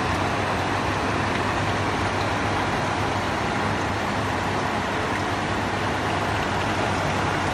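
Symphony Diet evaporative air cooler running: a steady fan hum and rush, with water from the pump trickling down through the wet honeycomb cooling pad.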